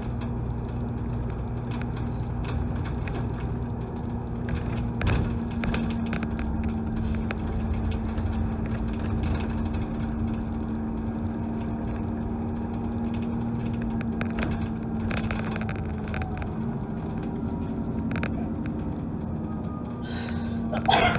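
Dennis Trident double-decker bus under way, heard from inside the upper deck: a steady diesel engine drone with frequent rattles and clicks from the bodywork. The engine note lifts briefly about three-quarters of the way through.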